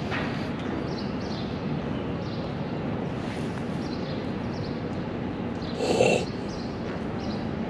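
Steady outdoor street ambience with a low, even hum and short high chirps now and then. One louder, short sound stands out about six seconds in.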